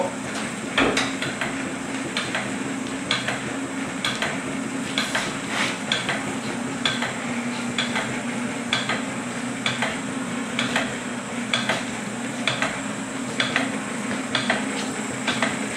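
Armstrong-Blum Marvel No. 2 flat-belt-driven draw-cut power hacksaw running, its saw arm stroking back and forth with a clack about once a second over the steady hum of the drive. The stroke is slower than it should be because the saw is driven by a gear reduction motor rather than its line shaft.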